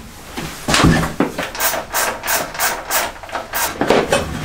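Hand work at the motorcycle: a knock, then a run of about seven short scraping strokes, roughly three a second, that stop near the end.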